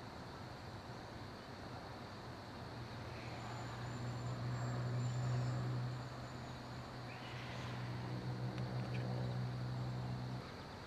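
Low, steady engine drone that swells about four seconds in, eases, rises again and cuts off suddenly near the end, over a faint high insect hum.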